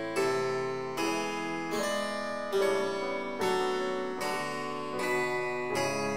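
Instrumental music: bright keyboard chords struck about once every 0.8 seconds, each ringing and fading before the next.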